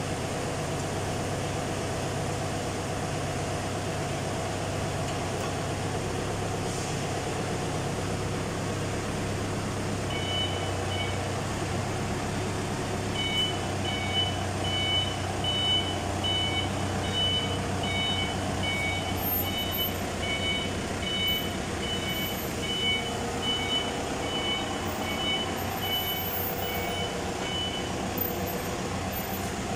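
Forklift engine running steadily, with its reversing alarm beeping about two times a second from about ten seconds in until near the end.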